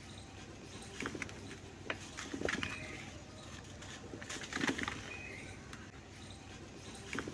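Dry crumbly clumps breaking apart in short gritty, crackling crunches, about five bursts spaced irregularly.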